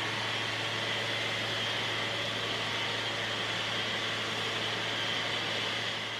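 Steady machine noise: an even hiss over a constant low hum, with no change in pitch or rhythm.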